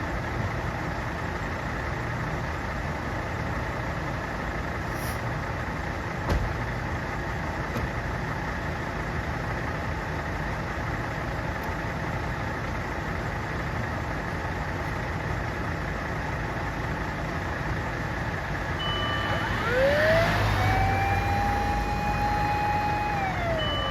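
Fire engine idling steadily during a vehicle inspection, with a single knock about six seconds in. Near the end its siren is tested: it winds up quickly, holds a steady tone for a few seconds, then winds down.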